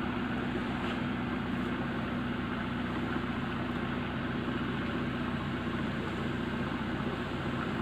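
A small 5 V DC motor taken from an old CD drive, spinning a large metal pulley through thin rubber belts, whirring steadily with a constant hum.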